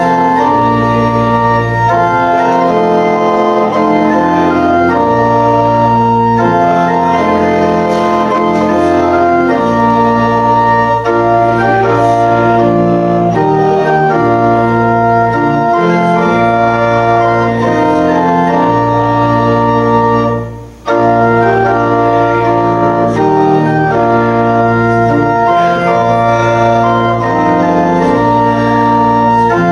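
Church organ playing a hymn in slow, sustained chords, with a brief break about two-thirds of the way through before it carries on.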